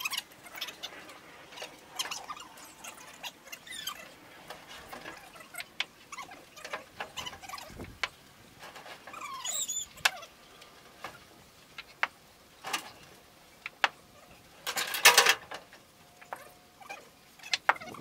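Wooden boards being unloaded from a truck and laid on the ground: scattered knocks and clacks at irregular intervals, with a louder rattling clatter about fifteen seconds in.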